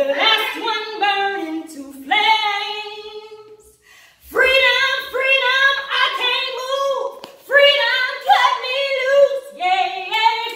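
A woman singing unaccompanied into a microphone: long melismatic runs with held, wavering notes, broken by a short pause about four seconds in.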